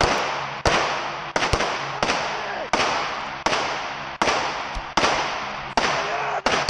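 Semi-automatic pistol fired in steady slow succession, about ten shots roughly 0.7 seconds apart, each crack followed by a long echo inside an indoor shooting range.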